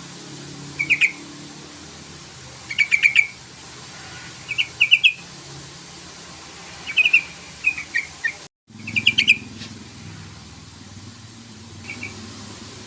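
Yellow-vented bulbul (trucukan) giving short, bubbly chattering phrases, about six bursts a second or two apart, used as a lure call to provoke rival males into singing. The sound cuts out completely for a moment about two-thirds through.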